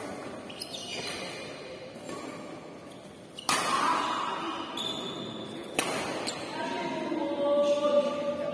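Two sharp knocks about two seconds apart, each with a short ring, over background voices.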